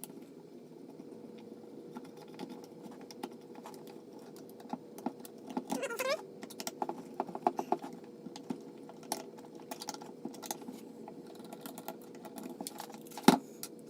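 Small irregular clicks and taps of a screwdriver and screws being worked out of a DeWalt sander's plastic housing, with a sharp knock near the end.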